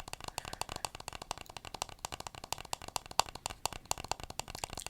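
Rapid, irregular clicking close to the microphone, about ten sharp clicks a second, an ASMR trigger sound made on or with the toys.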